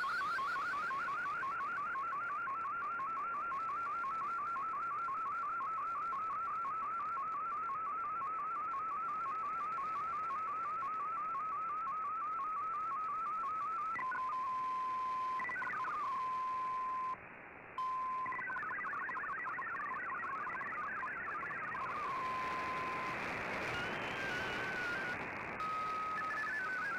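A shortwave MFSK digital broadcast plays through the receiver over a hiss of static. For about 14 s the tone warbles up and down over and over as an MFSK picture comes in. Then come a steady tone and short bursts of data tones, and near the end an RSID burst that switches the mode back to MFSK32.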